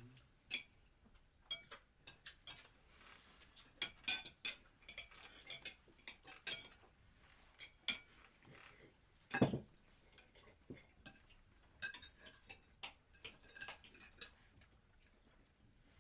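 Cutlery clinking and scraping against plates as people eat: irregular, quick clinks and clicks, with one heavier knock about nine and a half seconds in.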